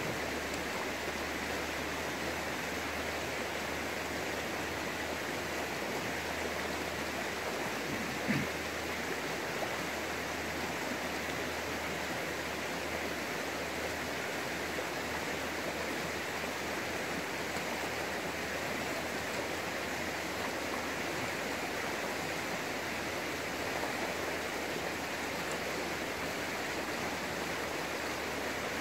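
Steady, even outdoor rushing noise with no speech, and a single brief low thump about eight seconds in.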